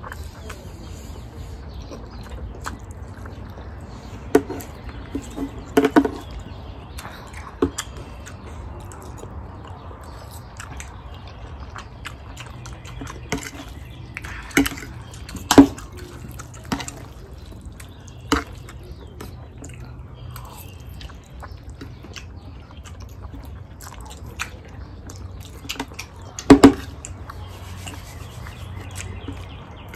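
Two people slurping and chewing jjajangmyeon noodles in black bean sauce, with scattered short wet slurps, the loudest about fifteen and twenty-six seconds in, over a steady low hum.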